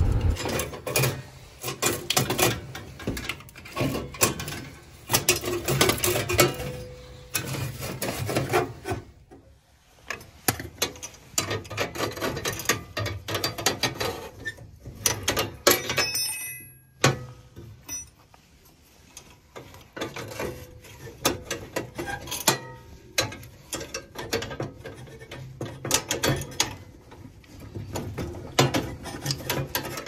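Irregular metallic clicks, scrapes and rattles of a wrench and fittings at a gas boiler's pilot burner assembly, as the pilot gas tubing and thermocouple are loosened and the burner is worked free. The handling stops briefly twice, about nine and seventeen seconds in.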